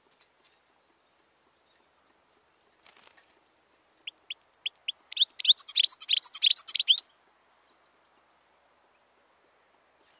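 European goldfinch singing. A few faint high notes come first, then a short row of separate clear notes, then a loud burst of fast twittering song lasting about two seconds that stops abruptly.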